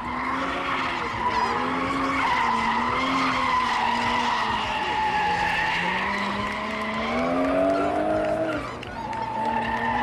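Drift car's tyres squealing through a long sideways slide, with the engine revving up and down underneath. The pitch wavers throughout, climbs about seven to eight seconds in, then drops away briefly near the end.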